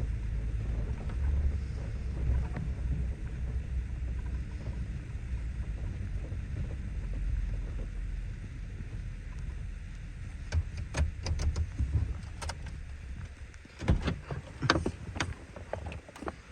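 Wind rumbling on the microphone, then a run of short, sharp knocks or rustles over the last few seconds.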